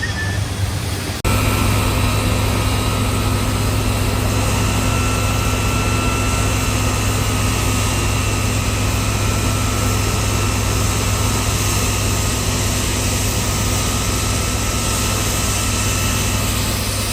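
Large machine running steadily at constant speed: a loud, unchanging drone with a strong low hum, starting abruptly about a second in.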